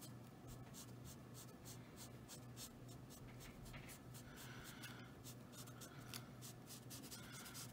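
Faint scratching of an alcohol-marker colourless blender nib rubbed over gesso-primed coloring-book paper in many quick short strokes, smoothing and re-wetting the marker colour.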